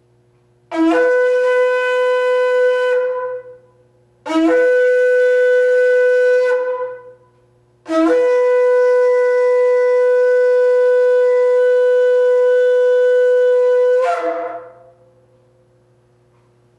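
A shofar is blown three times: two blasts of about two seconds, then one long blast of about six seconds. Each starts with a brief lower note and jumps up to a steady, brassy main tone.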